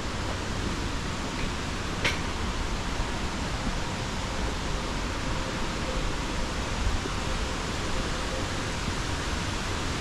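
Steady rushing noise of falling water from the Varone waterfall in its gorge, with a single short click about two seconds in.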